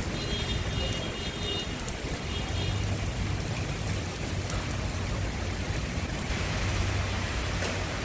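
Heavy rain falling steadily, with a low rumble underneath. A faint high tone sounds twice in the first three seconds.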